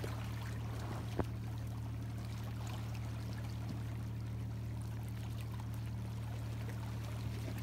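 Shallow seawater trickling and lapping among shore rocks, over a steady low hum, with a single sharp click about a second in.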